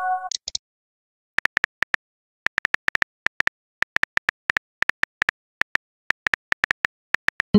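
Simulated keyboard tap clicks of a texting-story app, light and quick, coming in short runs as a text message is typed. The tail of a short pitched chime, the message-sent tone, sounds at the very start.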